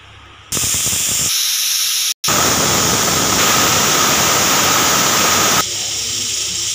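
Pressure cooker whistling: steam blasts out from under the weight valve in a loud, steady hiss, the sign that the cooker is up to pressure. The hiss starts about half a second in and cuts out very briefly about two seconds in.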